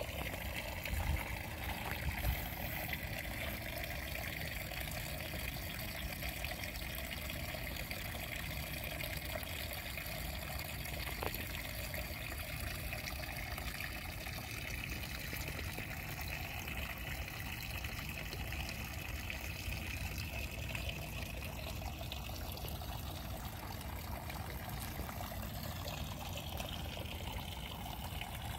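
Steady trickle of water running in a shallow muddy ditch, with a couple of soft low bumps in the first few seconds.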